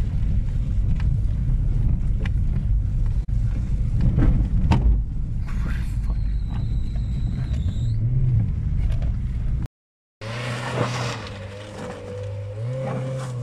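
Volkswagen Polo driving over a rutted, puddled dirt track, heard from inside the cabin: a loud low engine-and-tyre rumble with scattered knocks from the bumps. After a sudden cut about ten seconds in, the Polo's engine is heard from outside as it ploughs through deep mud, revving up briefly near the end.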